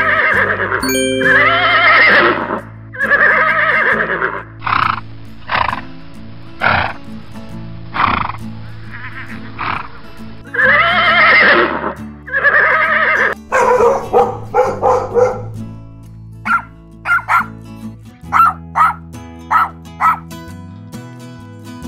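A horse whinnying again and again over steady background music, with long wavering calls and some shorter ones. Near the end come about seven short, quick dog yips.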